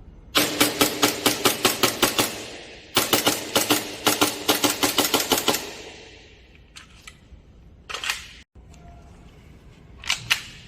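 Airsoft gun firing two fast strings of shots, about seven a second, each string about two seconds long, followed by a few scattered clicks and one more short burst near the end.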